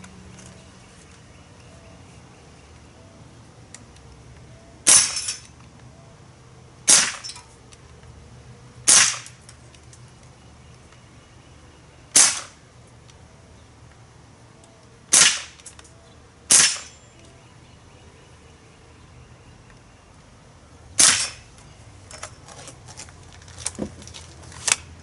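Daisy/Winchester M14 CO2-powered semi-automatic air rifle firing seven shots, each a sharp crack, spaced irregularly two to four seconds apart. A few faint clicks follow near the end.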